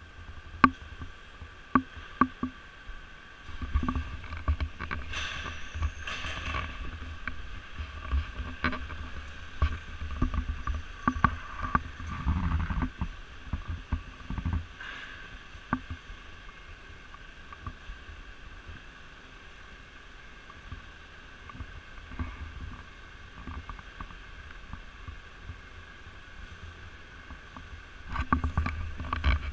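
Background noise of a market hall: a steady hum, scattered sharp clicks and knocks, and low rumbling handling noise from the moving body-worn camera, heaviest in the first half and again near the end.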